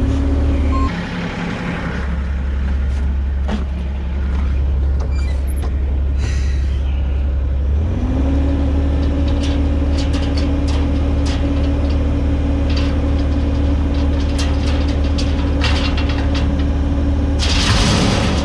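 A heavy engine running. It eases off about a second in, then revs up and holds higher from about halfway. Scattered clanks run through it, and a short burst of air hiss comes near the end.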